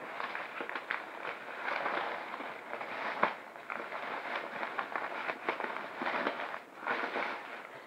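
Thin nylon rain cover rustling and crinkling as it is pulled and stretched by hand over a backpack: a steady run of small crackles, with a sharper snap about three seconds in.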